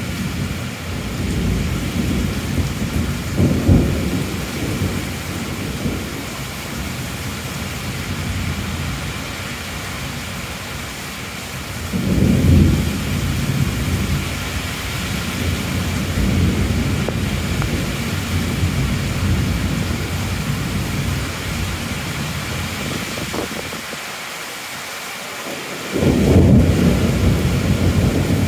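Heavy rain falling steadily, with rolls of thunder rumbling under it: one a few seconds in, one around the middle, and one that starts suddenly after a short lull near the end.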